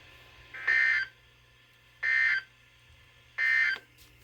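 Three short, identical bursts of warbling SAME digital data tones from NOAA Weather Radio, evenly spaced about a second and a half apart: the end-of-message code closing a tornado warning broadcast.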